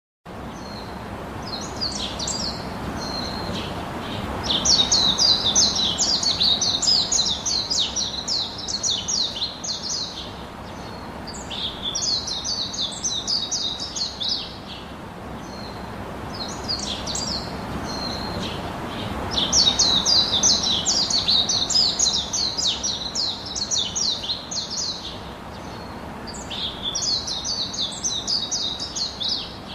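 A bird chirping in rapid, high-pitched bouts of a few seconds each, with short pauses between, over a steady background hiss.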